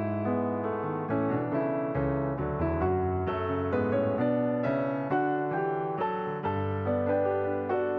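Background piano music, a gentle melody with a steady pulse of notes.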